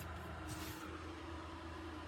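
Steady low background hum with a faint steady tone, and a brief soft swish about half a second in.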